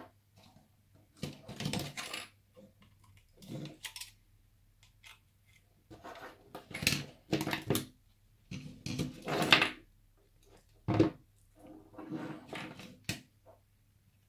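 Hands working with a wall light switch, thin electrical wires and a screwdriver on a wooden tabletop: irregular bursts of scraping, rustling and clicking, about six in all, with short pauses between them.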